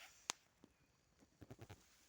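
Near silence, broken by one sharp click about a third of a second in and a few faint soft knocks a little past the middle.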